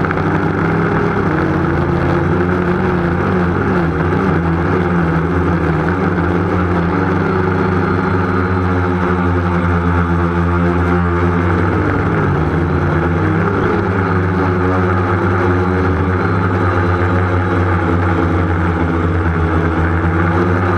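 Motor and propeller of a small model aircraft, heard from its onboard camera: a loud, steady drone whose pitch dips briefly about twelve seconds in and then rises again.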